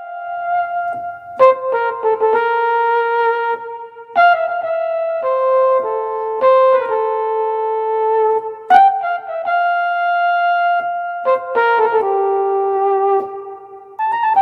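Korg M1 synthesizer playing a piano-like keyboard patch: chords struck and held, a new chord every one to three seconds.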